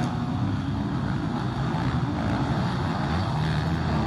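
Motocross bike engines running on the track, a steady drone with small swells in pitch.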